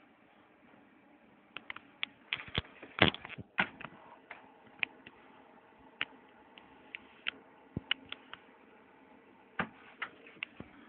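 Handling noise close to the microphone: scattered sharp clicks and taps, densest and loudest about three seconds in, over a faint steady hum.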